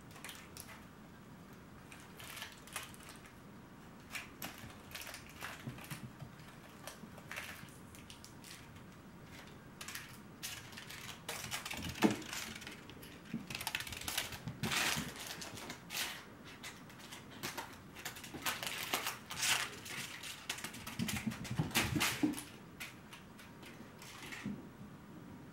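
Crinkle ball toy crackling as kittens bat and chase it across the floor. The crackling comes in irregular bursts, busiest in the second half, with one sharp knock about twelve seconds in.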